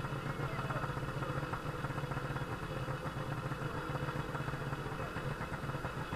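Portable fire pump's engine idling steadily, an even low drone with a fast, regular pulse.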